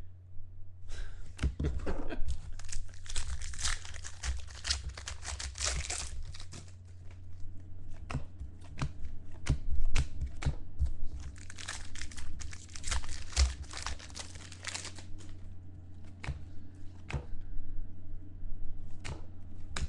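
A foil trading-card pack wrapper being torn open and crinkled, with the cards inside handled. There are two long spells of dense crinkling, from about a second in and again from about eleven seconds in, with scattered sharp clicks between and near the end, over a steady low hum.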